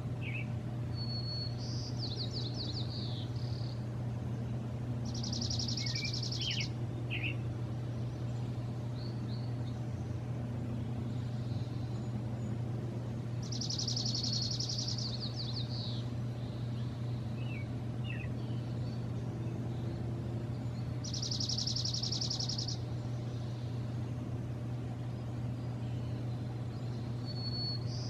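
A songbird singing the same short song over and over, a fast high trill about every seven to eight seconds with a few short down-slurred notes near it, over a steady low hum.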